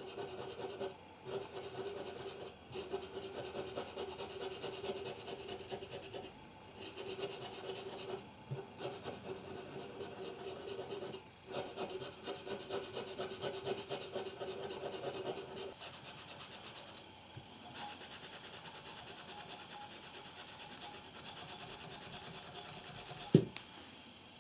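Rust being scraped and rubbed off the metal parts of a Konica EFJ film camera by hand: repeated back-and-forth scraping strokes, lower in pitch for most of the time, then higher and finer for the last several seconds, with one sharp click near the end.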